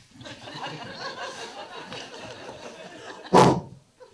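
Audience laughing, many voices together, with one sudden loud burst about three and a half seconds in.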